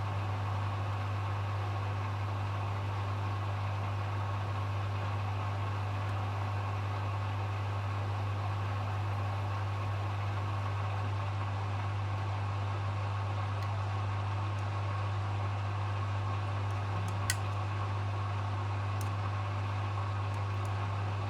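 Hoover HW411AMC front-loading washing machine in its final spin at up to 1400 rpm, the motor and drum running at a steady speed with a constant hum and a whine. A single short click comes about 17 seconds in.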